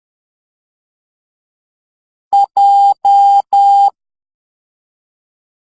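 Morse code sent as a steady, mid-pitched beep tone, keying the letter J: one short dit followed by three long dahs, starting a little over two seconds in after a pause.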